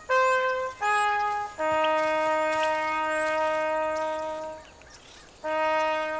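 Background music: a solo wind instrument playing a slow melody of long held notes, the longest and lowest held about three seconds, with a short pause before the last note. Faint bird chirps sound high behind it.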